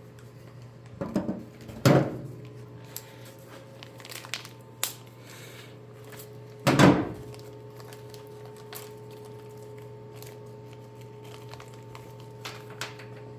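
Metal clanks and knocks as tools and bolts are handled while braces are bolted onto a car body. There are three louder clunks, about one and two seconds in and again near the middle, with light clicks in between over a steady low hum.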